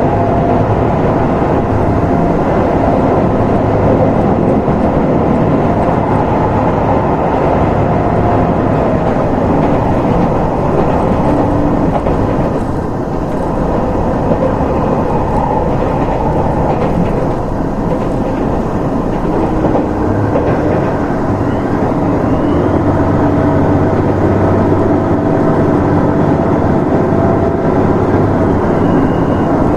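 Steady running noise inside a diesel limited express train on the move, rail and wheel noise mixed with an engine hum that shifts in pitch partway through.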